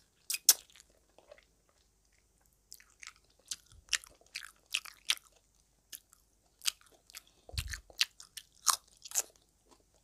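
A person eating: smacking lips and sucking fingers just after the start, then irregular crunchy, wet chewing from about three seconds in until shortly before the end.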